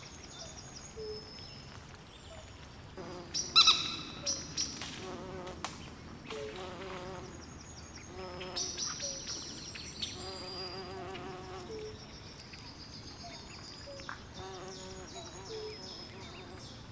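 Swamp night chorus: frogs call in repeated low pulsing trills under constant high chirping from insects. A loud, sharp animal call stands out about three and a half seconds in.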